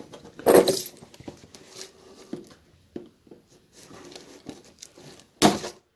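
Clear plastic wrap on a cardboard box being slit with a knife and handled: light rustling and scraping, with two loud crinkling bursts about half a second in and near the end.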